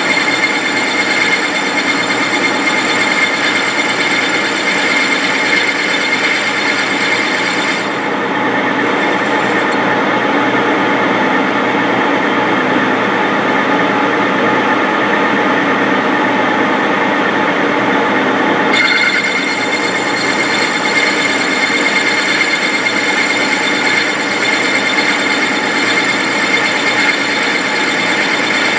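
Metal lathe running with a boring bar cutting inside a spinning part, enlarging the bore to take a press-fit sleeve: a steady machining noise with a ringing whine. The high-pitched part of the cutting sound drops away about 8 seconds in and comes back about 19 seconds in, while the lathe keeps running.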